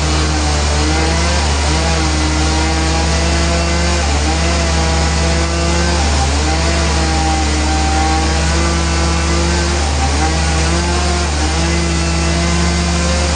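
Sawmill saw cutting through a log: a loud, steady machine sound with a constant low hum and a motor tone that dips briefly every second or two as the cut loads it.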